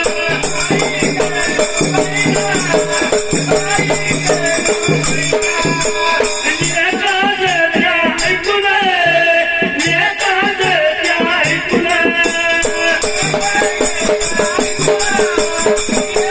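Dhangari ovi folk music: a wavering melody line over fast, steady jingling percussion.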